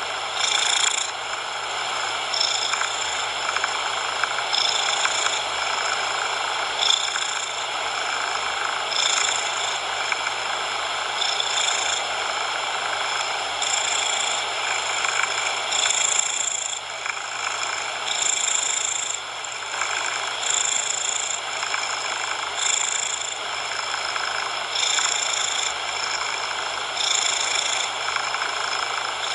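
Cat purring continuously, swelling and easing with each breath about every two seconds.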